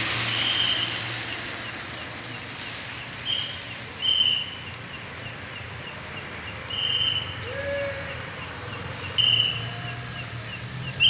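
A traffic warden's whistle blown in five short, shrill blasts, over a steady hiss of rain and the low hum of vehicle engines at the crossroads.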